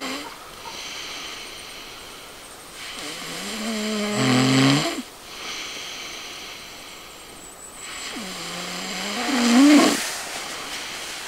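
A person snoring: two long snores, the first about four seconds in and the second about nine seconds in, each growing louder toward its end.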